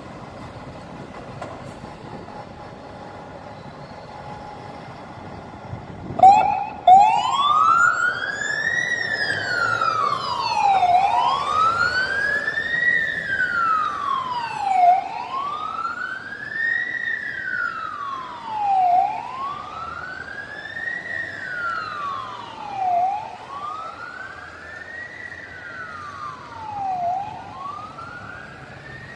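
Fire engine's siren switches on about six seconds in and wails slowly up and down, one rise and fall about every four seconds, fading as the truck drives away. Before it, there is the low rumble of the engine and passing traffic.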